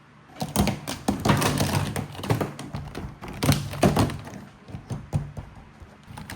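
Hard plastic being handled: a quick, uneven run of knocks, taps and clatters, loudest around the middle and thinning out towards the end.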